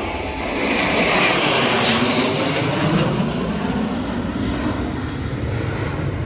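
Jet aircraft making a fast low pass: a loud roar that swells in the first couple of seconds and drops in pitch as it goes by, then trails off into a steadier rumble.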